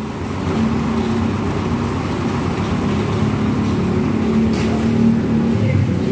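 A large engine running steadily with an even, low hum.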